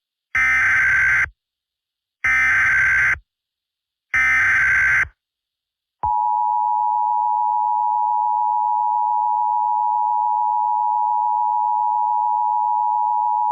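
Emergency Alert System tones: three short bursts of SAME header data, each about a second long with a harsh warbling buzz, then about six seconds in the steady two-tone EAS attention signal starts and holds.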